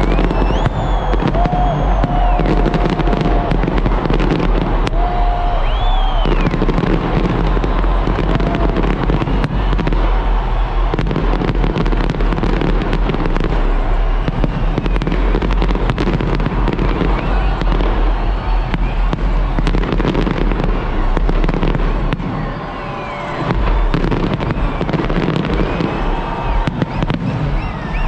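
A New Year fireworks display going off continuously: a dense run of booming bursts and crackling, with whistling glides rising and falling over it. The barrage eases for about a second a little past two-thirds of the way through, then picks up again.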